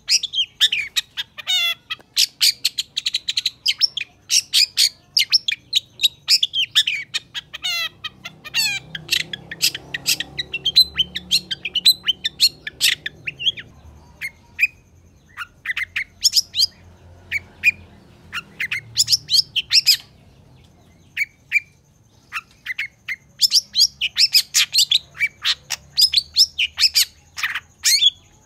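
Long-tailed shrike (cendet) singing hard: a fast, almost unbroken run of sharp, chattering and sweeping notes, thinning to a few scattered notes for a couple of seconds about two-thirds of the way through before picking up again.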